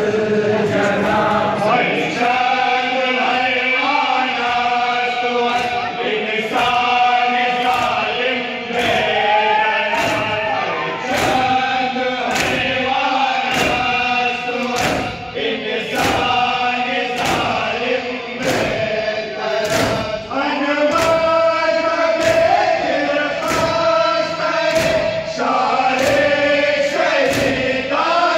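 A crowd of men chanting a Muharram lament (noha) in unison. A steady beat of hands striking bare chests (matam) runs under the chant, a little more than one strike a second.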